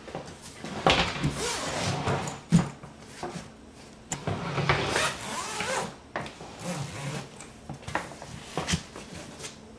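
The expansion zipper of a hardshell suitcase being unzipped in a few rasping pulls, with the plastic shell knocking and rubbing on a wooden table as the case is turned.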